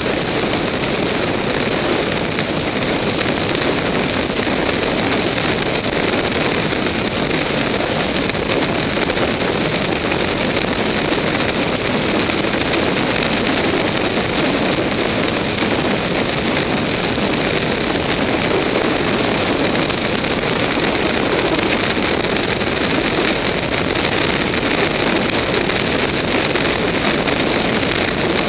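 Steady wind rush on the microphone over the engine and tyre noise of a Suzuki Bandit inline-four motorcycle cruising at highway speed.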